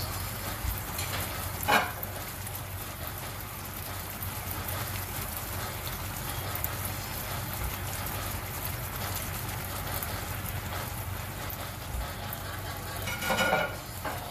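Pork loin steaks simmering in sauce in a frying pan: a steady crackling sizzle and bubbling. A short louder sound cuts in about two seconds in, and another near the end.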